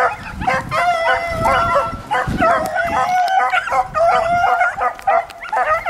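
A pack of beagles baying on a rabbit track: several dogs give tongue at once, long drawn-out bawls overlapping with short choppy barks, without a break.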